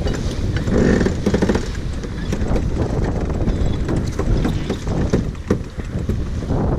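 Wind buffeting the microphone and water rushing along the hull of a J/111 racing sailboat under way, as a steady heavy rumble with faint knocks and clicks through it.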